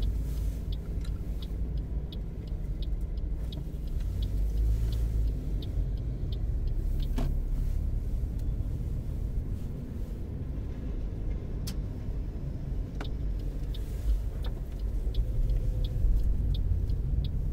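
Car cabin noise while driving slowly: a steady low rumble of engine and tyres, with a turn-signal indicator ticking about three times a second for the first few seconds and again through the second half.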